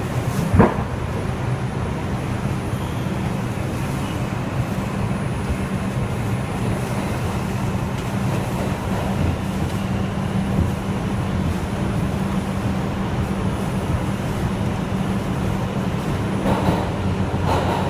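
R142 subway car running between stations, heard from inside: a steady rumble and low motor hum of the moving train. There is one sharp knock about half a second in, and a little rattling near the end.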